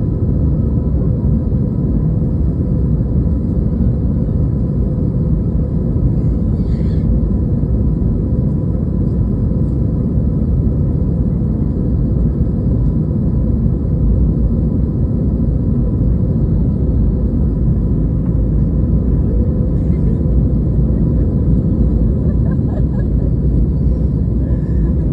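Airbus A320 engines and airflow: a steady, loud low rumble with a faint even hum, unchanging throughout.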